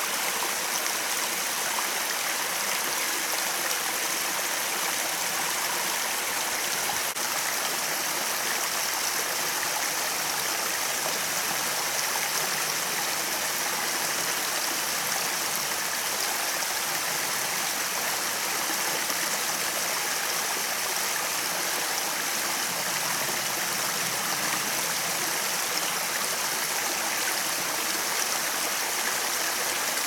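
A small waterfall, about ten metres high, pouring as a narrow cascade over sloping rock into a pool: a steady rush and splash of falling water.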